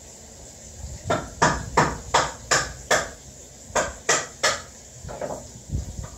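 Black Crayola wax crayon scratching across notebook paper on a table: a run of quick drawing strokes, about three a second with a short pause in the middle, then a few fainter strokes near the end.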